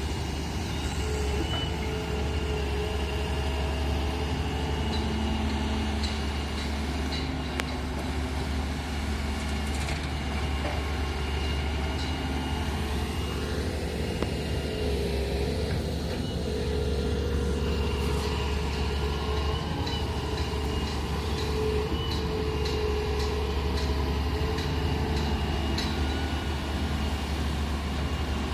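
Doosan excavator working, its diesel engine running steadily with a whine that rises and falls in pitch now and then.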